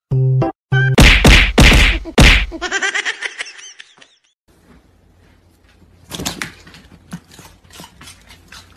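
A burst of chopped music, then four loud thunks in quick succession, followed by a short warbling sound. After that comes faint room noise with scattered light clicks.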